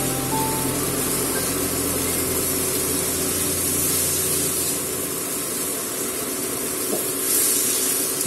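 Vegetables sizzling in a hot nonstick wok as they are stir-fried, a steady hiss.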